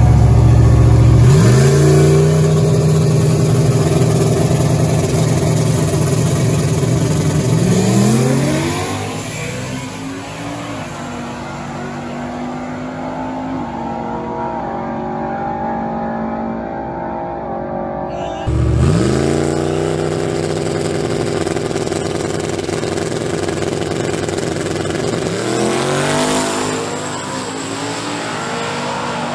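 Boosted drag-racing pickup truck launching hard off the line: the engine revs up in a rising sweep, shifts through its 4L80 automatic and fades as it runs away down the track. After a cut, a second rising run with another shift follows near the end.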